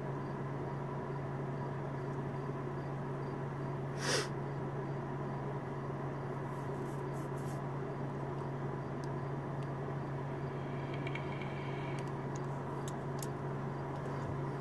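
Steady low hum, with one brief noisy burst about four seconds in.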